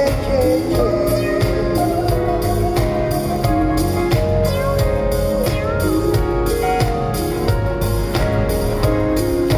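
Live pop band music over a concert PA: a guitar carries sustained, sliding melody lines over a steady drum beat, with little singing.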